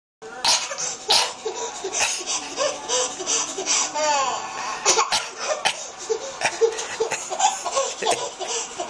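A person giggling over and over in short high bursts, with a few sharp coughs mixed in.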